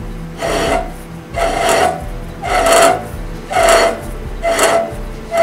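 Rasping, rubbing strokes about once a second from the freshly machined front brake disc of a Mercedes W126 as it is turned by hand in short pushes to check its runout with a dial indicator.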